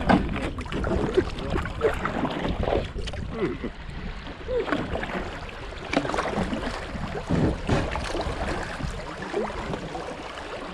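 Creek water gurgling and splashing around a kayak's hull as it runs through a riffle, in uneven surges.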